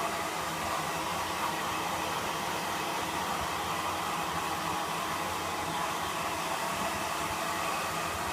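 Hair dryer running steadily on one setting, an even rushing blow.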